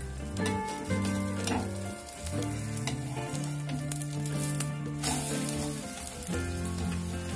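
Egg omelette sizzling in oil in a non-stick frying pan, the sizzle swelling briefly about five seconds in as the omelette is flipped over. Background music with sustained notes plays along.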